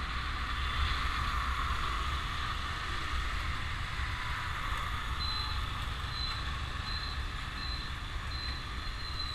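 Motorbike riding through city traffic, heard from the rider's seat: steady engine and road noise with a low wind rumble on the microphone. From about halfway through, a short high beep repeats roughly every three-quarters of a second.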